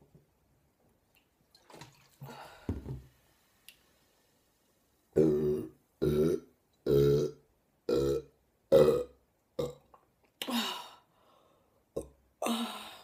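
A woman burping loudly over and over, a string of short belches less than a second apart followed by two longer ones near the end. The burps are brought up from carbonated cola she has drunk.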